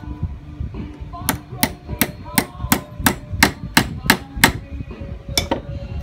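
Hammer striking a spark plug wire crimping die held in a bench vise, crimping the terminal's tabs onto the wire: about ten quick, evenly spaced blows, roughly three a second, then one more blow a second later.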